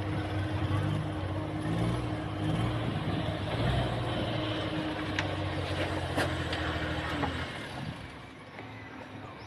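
Small mini pickup truck's engine idling steadily, then stopping near the end.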